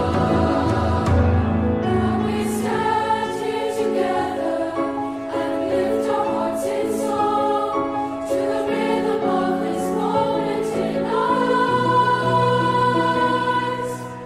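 A choir singing, several voice parts holding long notes together, with a high note sustained through the last few seconds.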